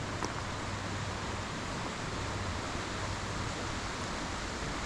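Steady rush of a mountain river, the Leutascher Ache, flowing through a narrow rock gorge.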